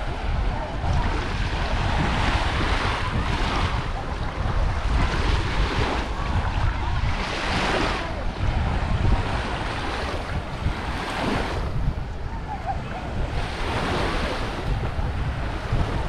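Small sea waves breaking and washing up on a sandy shore, the hiss of the surf swelling every few seconds, with wind buffeting the microphone as a low rumble underneath.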